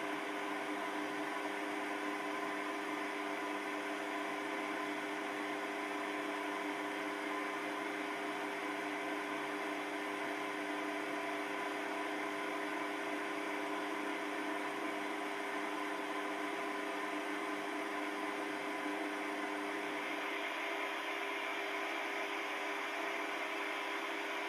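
Small Chinese bench lathe running steadily: an even motor and gear whine.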